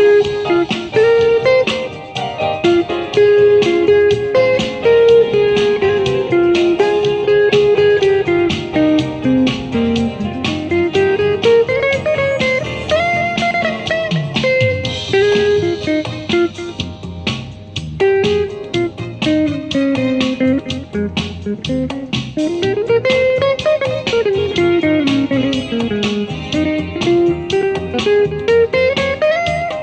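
Archtop electric guitar played through a small amplifier: a jazz melody of quick plucked single notes, with runs that climb and fall.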